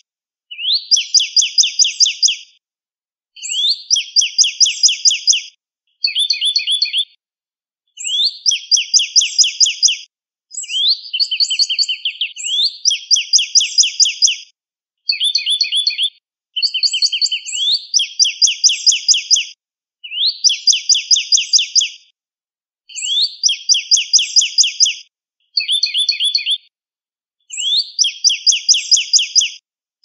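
Northern cardinal singing: phrase after phrase of fast repeated whistled down-slurred notes, each run lasting one to three seconds, with short silent gaps between runs.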